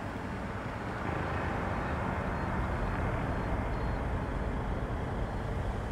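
Steady outdoor background noise: a low rumble and hiss with no distinct events.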